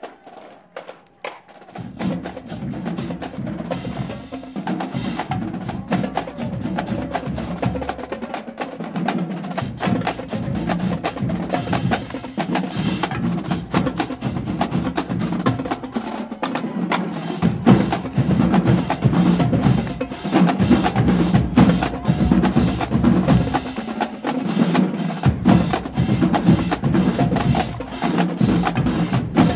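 Marching band drumline playing a cadence, with fast snare strokes and rolls over tenor and bass drums. It starts about two seconds in, and the bass drums drop out briefly a few times.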